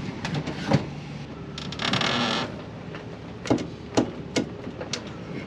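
Handling and refitting parts on a steering column: several sharp clicks and knocks, with a short scraping rustle about two seconds in.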